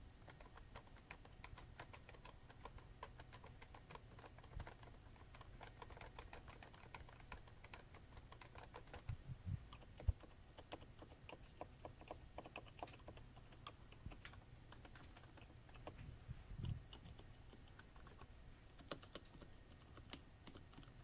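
Gentle, quiet typing on a Topre Silent keyboard: a continuous patter of soft, damped keystrokes on the main keys, with a few louder knocks about halfway through and once more later.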